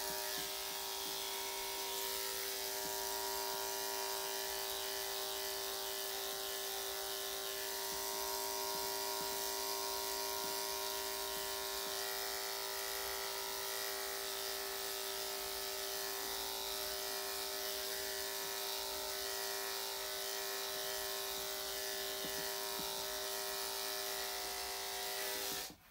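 Corded electric dog grooming clippers fitted with a number 10 blade, running with a steady hum while shaving matted fur on the inside of a puppy's hind leg. They are switched off and cut out suddenly just before the end.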